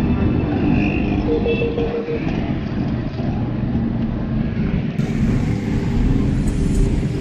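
A car driving, its engine and road noise heard from inside the cabin as a steady, dense low rumble.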